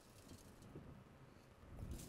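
Near silence: room tone, with a faint soft low bump near the end.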